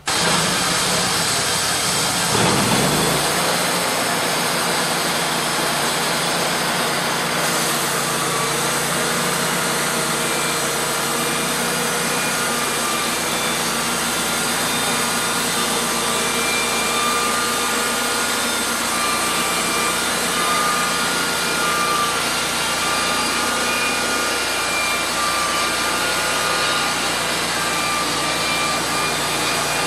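Wood-Mizer horizontal band sawmill running under its engine, starting abruptly with a brief rise about two seconds in, then a steady drone with a thin whine over it.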